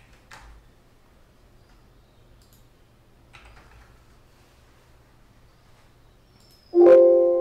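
A few faint computer keyboard and mouse clicks, then near the end a loud computer alert chime: several tones sounding together that ring on and fade over about two seconds. The chime comes just after Save is clicked in the billing software and marks the item being saved.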